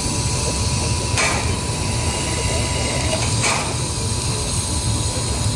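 Railway turntable turning with a small steam tank locomotive on it: a steady low rumble with a thin steady whine above it, and a sharp mechanical clank twice, about two seconds apart.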